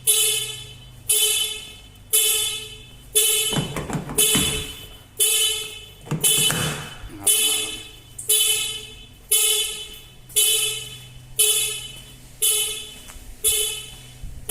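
Car alarm siren going off in repeated pulses, about one a second, each starting sharply and fading, set off by the alarm's shock sensor. Two brief bursts of noise sound about four and six seconds in.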